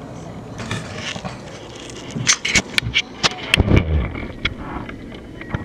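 A cluster of sharp clicks and knocks with some scraping about two seconds in, lasting around two seconds, from the camera being handled close to its microphone. Under it runs a faint low hum.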